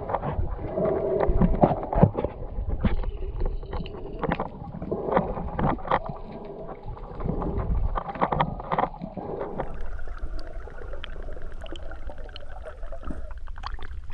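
Muffled underwater sound through a waterproof camera housing: water movement and rush with scattered clicks and knocks, turning hissier from about ten seconds in.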